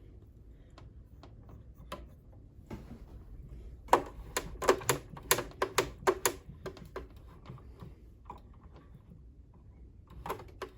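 Sharp clicks and taps from hands and tools working on an old Kenmore sewing machine's mechanism during greasing. A quick run of about ten loud clicks, roughly four a second, comes in the middle, with scattered lighter clicks before and after.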